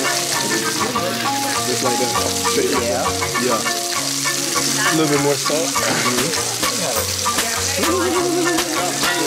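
Raw beef burger patty sizzling steadily in hot oil in a stainless steel frying pan, with a fine crackle throughout.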